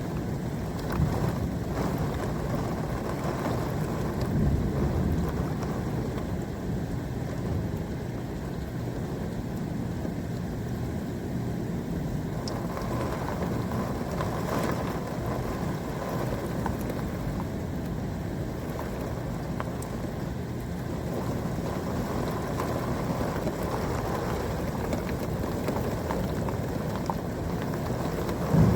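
Steady rain falling in a thunderstorm, with low rumbling of thunder that swells a little about a second in and again around four to five seconds in.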